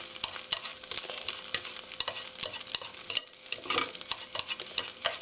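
Sliced onions sizzling in hot oil in a frying pan while wooden chopsticks tear up and stir the browned onion layer, with many small taps and scrapes of the chopsticks against the pan. The sizzle dips briefly a little past three seconds in.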